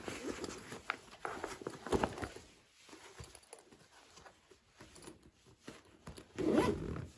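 Zipper of a black fabric backpack being pulled, with the rustle and clicks of the bag being handled; the loudest zip burst comes near the end.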